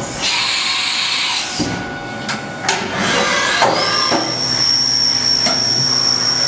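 Haas VF-3 CNC vertical machining center running a program. A hiss lasts about a second near the start and a few clunks come around two to three seconds in. Then the spindle drive spins up with a rising whine that settles into a steady high whine.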